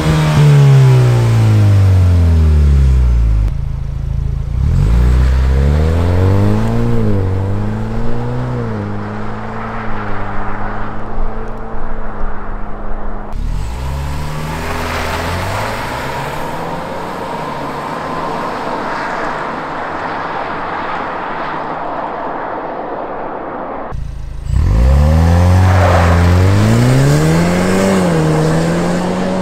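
Ford Bronco's 2.3 L EcoBoost turbocharged four-cylinder pulling away from a standstill at wide-open throttle, several times in a row: each run climbs in pitch, dips at an upshift and climbs again as the truck drives off. The runs are heard through the stock exhaust and through a Fast Intentions axle-back exhaust.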